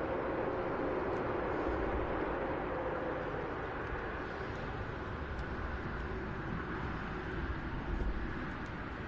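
Airbus A380-842 jet engines running with a steady rumble and hiss. A mid-pitched tone in the engine noise sinks slightly over the first few seconds.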